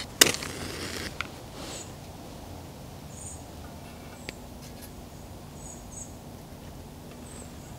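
A wooden match struck once on a matchbox just after the start, flaring briefly, then short high bird chirps a few times over a faint steady low hum.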